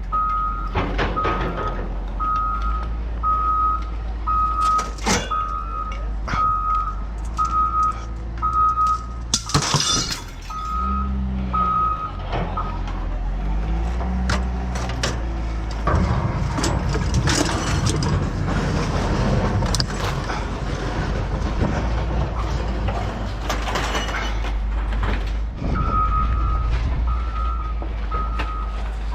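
Reversing alarm on a heavy vehicle beeping evenly, about three beeps every two seconds, over a diesel engine's low rumble, with a few sharp metal clanks. The beeping stops for roughly thirteen seconds in the middle, while the engine note rises and falls, then starts again near the end.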